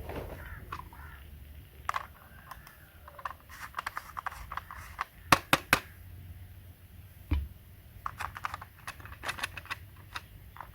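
Irregular small clicks and taps with a few light scrapes, as of hands handling small objects, the sharpest cluster about five and a half seconds in.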